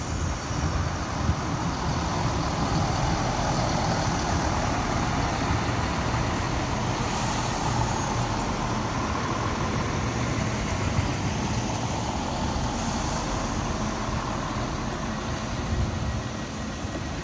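Northern Class 170 Turbostar diesel multiple unit passing and drawing away, its underfloor diesel engines running steadily over the rumble of its wheels on the rails.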